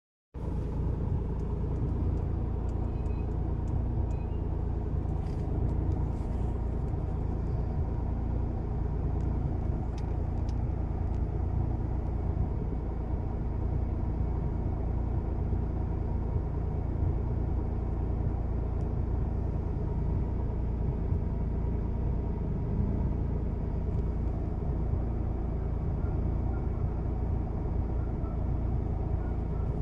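Hyundai Eon's 0.8-litre three-cylinder petrol engine running steadily with a low rumble and a steady hum, the noise that appeared after a brand-new air-conditioning unit was fitted. A few faint clicks sound in the first ten seconds or so.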